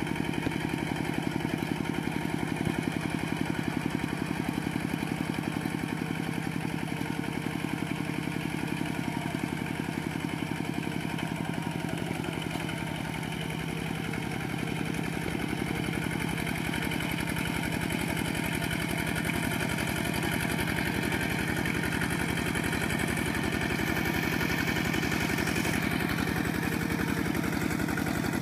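Kubota RT120 walking tractor's single-cylinder diesel engine running steadily with a fast, even beat while its cage wheels work through deep paddy mud, with a slight dip in level about halfway through.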